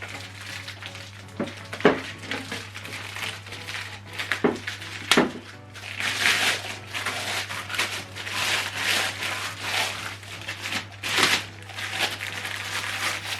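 Packaging being handled and crinkled during an unboxing: a few sharp knocks in the first half, then repeated crinkling and rustling bursts, over a steady low hum.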